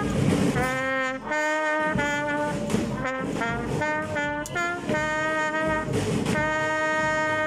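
School brass band playing a slow anthem: trumpets and trombones sounding long held notes that change every second or so, with a few drum beats, and one longer note held near the end.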